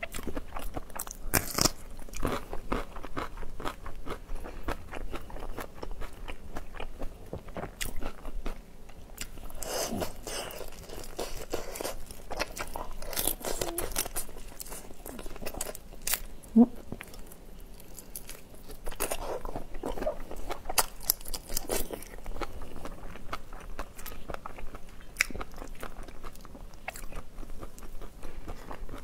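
Close-miked eating of whole marinated shrimp: shells cracking and being pulled apart, with crunching bites and wet chewing, in a dense run of small clicks and crackles.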